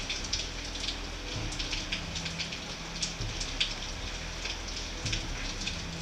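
Steady rain falling, with scattered drops ticking irregularly on nearby surfaces.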